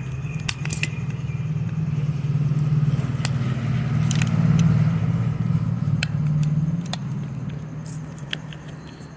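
Small metal parts of a motor starter's contactor clicking and clinking as its bottom plate is taken apart. Under it runs a low engine hum that grows louder toward the middle and fades away near the end.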